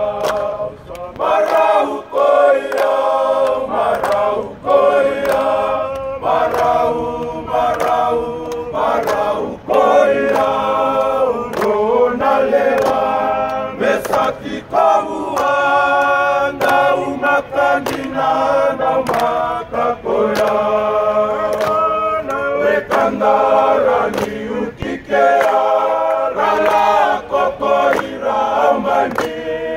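A group of men singing together unaccompanied in harmony, in long held phrases with short breaks between them.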